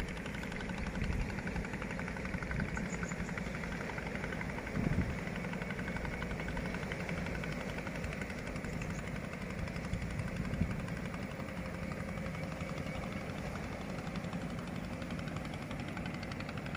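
Diesel locomotive engines running steadily under load, climbing an uphill grade, with a brief thump about five seconds in.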